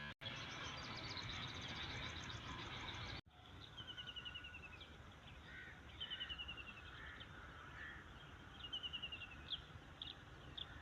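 Faint birdsong outdoors. A small bird repeats a quick descending trill three times, with scattered chirps and softer calls around it. A noisier stretch of fast high chirping before it stops abruptly about three seconds in.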